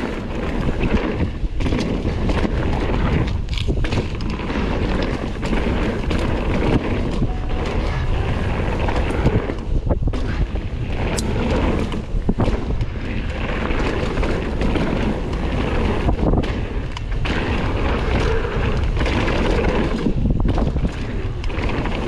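Kona Process 153 full-suspension mountain bike running fast down a dirt trail over jumps: tyres rumbling on the dirt and the bike rattling with many short knocks over the bumps, with wind buffeting the microphone.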